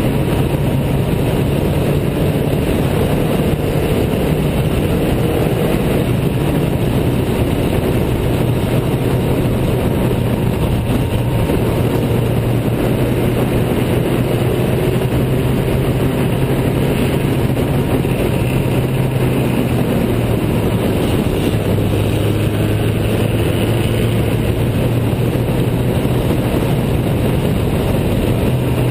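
Riley 12/4 Special's four-cylinder engine running hard at racing speed, heard from on board over a steady rush of wind noise, with a dip in pitch about two-thirds of the way through.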